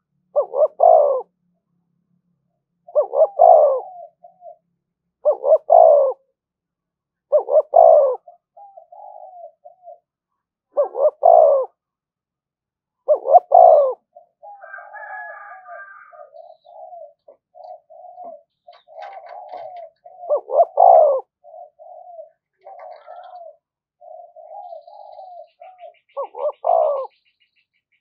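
Spotted dove cooing as a caged decoy calling to provoke wild doves into a territorial fight: about eight loud coo phrases every few seconds, with strings of softer, quieter coos between them in the middle and later part.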